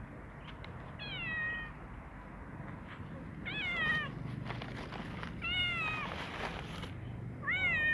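Ginger cat meowing while it eats: four short meows, each sliding down in pitch, the last starting near the end.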